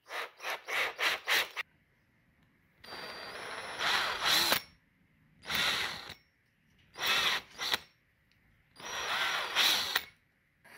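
Power drill run in bursts, boring tuner holes through a wooden ukulele headstock: a quick stutter of short trigger pulls first, then four longer runs of a second or two each, with pauses between.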